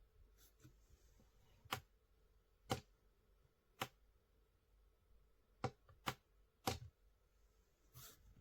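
About seven short, sharp clicks at uneven intervals over near silence: buttons being pressed on a sunrise alarm clock.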